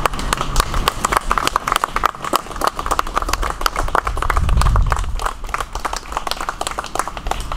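A small crowd applauding, with many hand claps that thin out near the end. There is a brief low rumble about halfway through.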